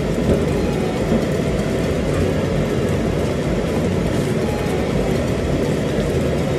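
Restaurant ventilation fan running, a steady low-pitched whooshing noise that does not let up.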